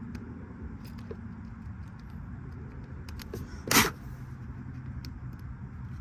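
Small tapping and scraping sounds of a plastic switch contact housing being worked on by hand. A single short, loud rasp comes just past the middle, over a steady low rumble.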